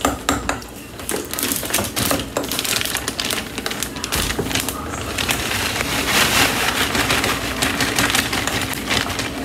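Rapid, continuous clicking and scraping of metal kitchen utensils working in a pot.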